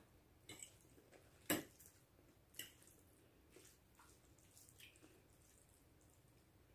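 Quiet eating: a few soft clicks and small wet mouth sounds as noodles are forked off plates and eaten. The loudest is a sharp click about a second and a half in.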